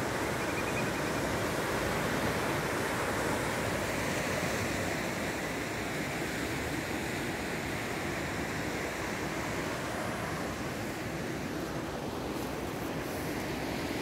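Sea surf washing over a rocky shore: a steady rush of water noise without breaks.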